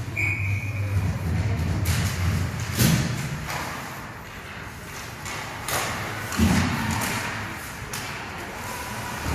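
Ice hockey play echoing in an arena: several sharp knocks and thuds of puck, sticks and boards, irregularly spaced, over a low hum that fades after the first few seconds.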